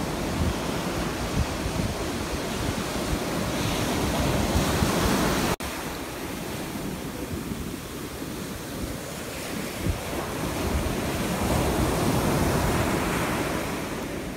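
Ocean surf breaking and washing up the sand, with wind on the microphone. The wash swells about four seconds in and again near the end, and the sound drops out for an instant about five and a half seconds in.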